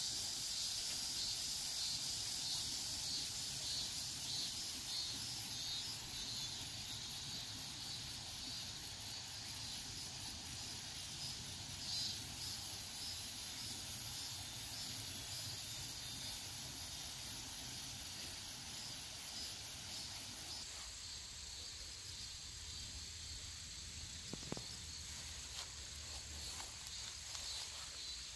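Insects chirping in grass: a high, fast-pulsing trill that changes abruptly about twenty seconds in to a steadier high hiss.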